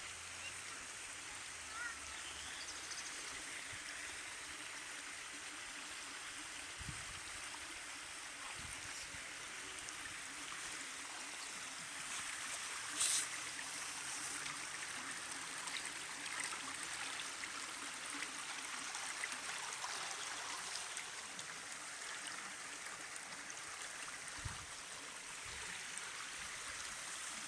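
Steady rushing of water from a small forest waterfall and its stream, with one brief sharp click about halfway through and a few soft low thumps.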